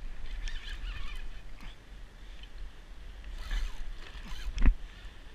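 Water slapping and lapping against a jetski hull at sea, under a steady low rumble, with one sharp knock on the craft about four and a half seconds in.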